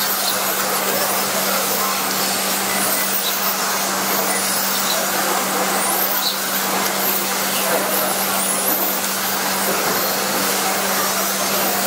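Radio-controlled touring cars racing around the track: a steady wash of motor and tyre noise with faint high-pitched whines rising and falling as the cars accelerate and brake, over a constant low hum.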